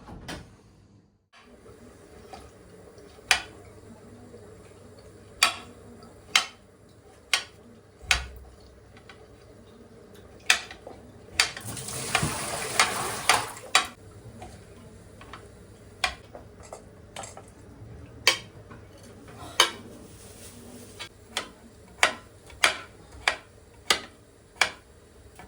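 Kitchen utensils and dishes clinking and knocking in irregular sharp taps, about twenty in all, with a brief hissing rush about halfway through.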